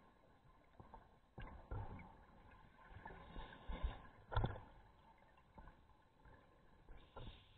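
Underwater scuba sound: regulator exhaust bubbles gurgling in short, irregular rushes, with a few dull knocks. The loudest rush comes about four and a half seconds in.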